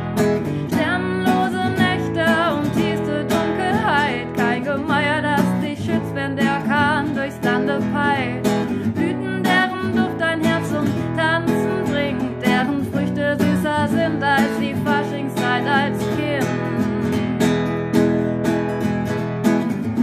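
Acoustic guitar strummed steadily while a woman sings a wavering melody over it.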